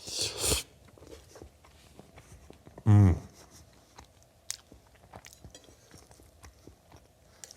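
Close-up chewing of a mouthful of ramen noodles with crispy bacon: soft wet chewing with many small crunching clicks. A short breathy rush at the start, and about three seconds in a brief, falling 'mm' hum of enjoyment.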